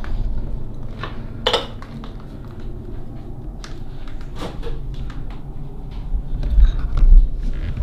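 Low rumble of a handheld camera being moved about, louder near the end, with a few light knocks, the clearest about one and a half seconds in.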